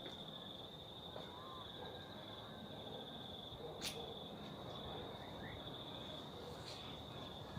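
Insects trilling: a steady, high-pitched, unbroken trill with a low background hiss. A single sharp click comes about four seconds in, and a few faint short chirps sound over the trill.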